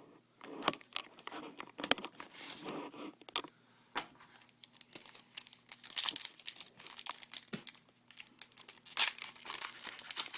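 A sealed trading-card pack being torn open, its wrapper crinkling and tearing in irregular crackling bursts with sharp clicks.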